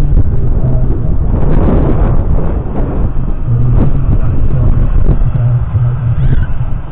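Valtra N174 tractor's 4.9-litre four-cylinder diesel engine running steadily with a low rumble.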